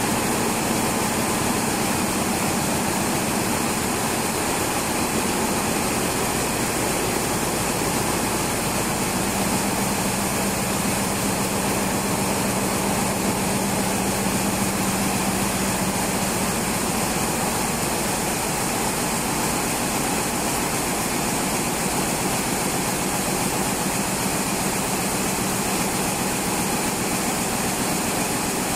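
Picanol OptiMax-i rapier weaving looms running at production speed: a loud, steady, dense mechanical noise from the machines in a weaving room.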